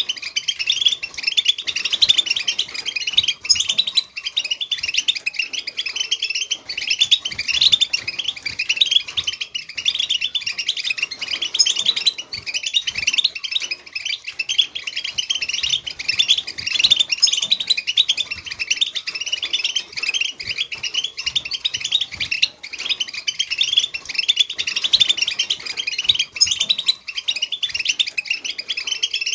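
A group of European goldfinches chattering and twittering together: a dense, continuous stream of quick, high chirps and trills.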